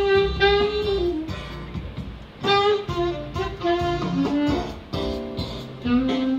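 Instrumental music: a melodic lead line of held notes, some several tenths of a second long, over a low band backing.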